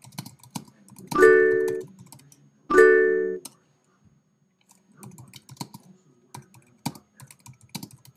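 Typing on a computer keyboard in quick, irregular keystrokes, broken by two short pitched chimes from the MySpace IM chat client about one and three seconds in, each fading away within about half a second.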